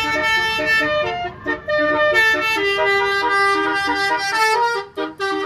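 Bus telolet horn, a multi-trumpet air horn, playing a tune of held notes that step from pitch to pitch. It breaks off briefly about a second in and again near the end.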